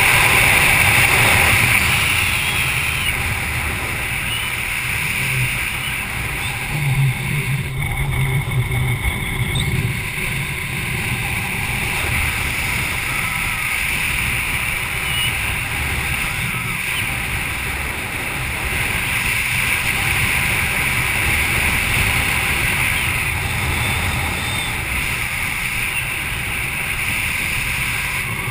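Steady wind rushing over the camera microphone during flight under an open parachute canopy, with heavier low buffeting for a couple of seconds about a third of the way in.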